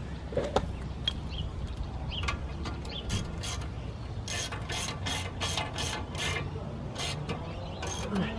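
C spanner turning the threaded lock collars on a coilover body: about three short, ratchety metal-on-metal strokes a second, starting about three seconds in, as the collars are run down and locked off.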